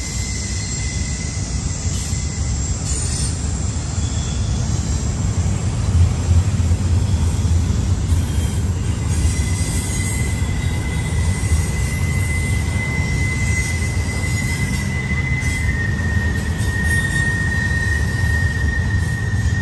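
A train rolling through a sharp curve with a steady low rumble and a high, thin wheel squeal: the flanges of steel wheels grinding on the curved rail. The squeal fades out for a few seconds, comes back, and steps slightly lower in pitch near the end, while the rumble grows heavier about six seconds in.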